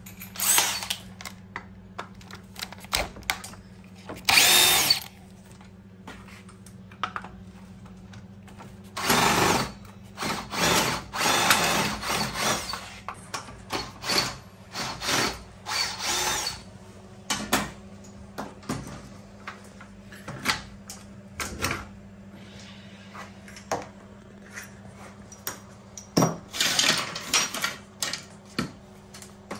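Cordless drill-driver running in repeated short bursts while the rear wheel of an electric scooter is unfastened, with tool clicks and knocks between the bursts. A steady low hum runs under it.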